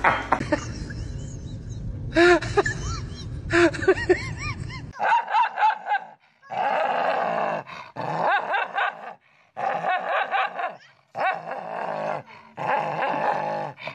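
Dog barking and growling at its own reflection in a mirror, in about six bouts of a second or so each with short silences between. In the first few seconds, before this, there are a few short cries over background noise.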